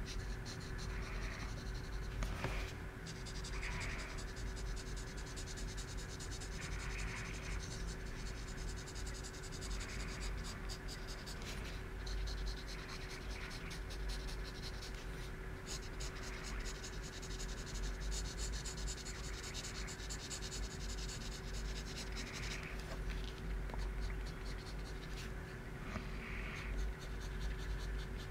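Pencil lead scratching on sketchbook paper in many short, quick strokes, with a steady low hum underneath.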